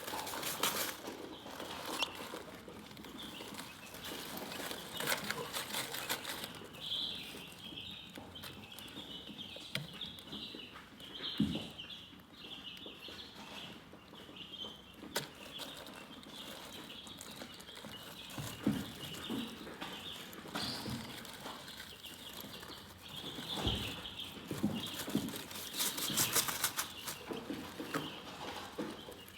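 Chickens chirping: a steady run of short, high peeps, with scattered scratching and rustling clicks among them.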